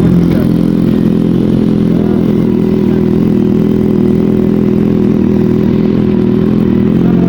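Kawasaki Z800's inline-four engine running at a steady speed, a low even hum with no revving.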